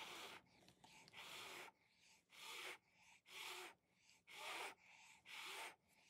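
A person blowing hard puffs of breath onto wet acrylic paint on a tile, about six in a row at roughly one a second, pushing the paint rings outward from the centre in a bloom pour.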